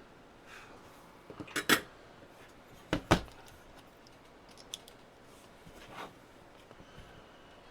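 Tools and small metal parts being handled on a workbench: a few sharp metallic clacks, the loudest pair about a second and a half apart, then a few fainter ticks.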